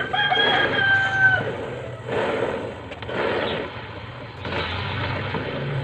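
A rooster crows once at the start: one steady call with strong overtones, about a second and a half long. Three short, rasping noisy bursts follow in the second half.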